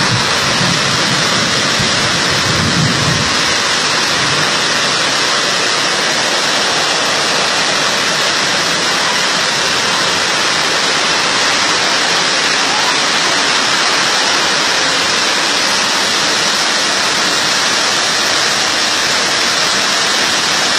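Heavy downpour and fast-flowing floodwater making a steady, loud rush of water noise. A low rumble dies away in the first three seconds.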